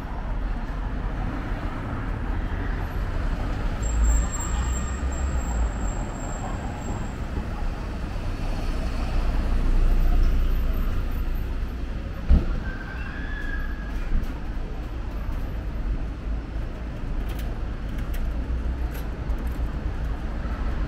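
City street traffic: a steady low rumble of engines and tyres, swelling as a vehicle passes close about ten seconds in, with a single sharp knock shortly after.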